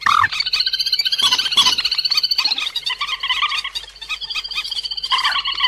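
Recorded call of the cuốc biển, a rail, used as a trapping lure: a long run of rapid, high, repeated short notes, easing briefly about four seconds in before picking up again.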